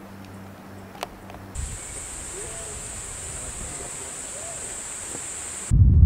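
A steady high-pitched insect buzz with a few faint low bird calls starts abruptly about a second and a half in, after a low hum. Near the end it cuts off sharply into a loud low rumble.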